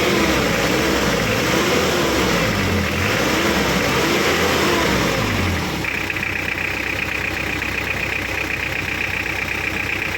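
Hyundai car engine revved up and down several times, then dropping back to a steady idle about six seconds in, with a steady high-pitched whine heard over the idle.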